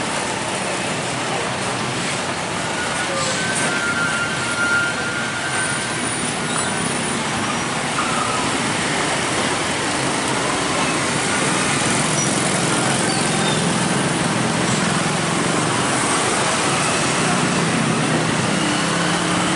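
Steady road traffic: trucks and other vehicles driving past, a continuous mix of engine hum and tyre noise.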